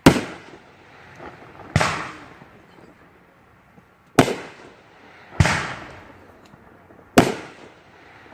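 Fireworks bursting: five sharp bangs about one to two and a half seconds apart, each fading away over about a second.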